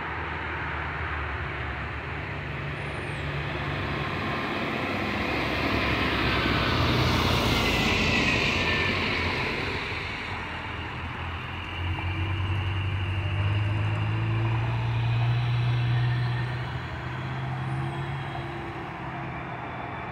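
Jet engine noise from a departing FedEx McDonnell Douglas trijet: a continuous rumble and roar with a low drone. It swells twice as the aircraft climbs out.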